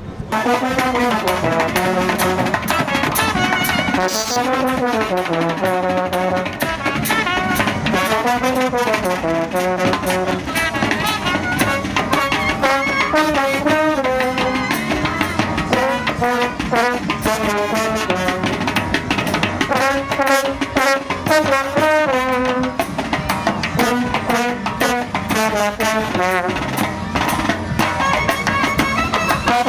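Indian brass band playing: euphonium, trumpets and a drum together in a melody with a steady beat.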